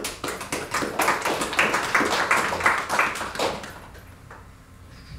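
Small audience applauding with hand claps that build and then die away about four seconds in.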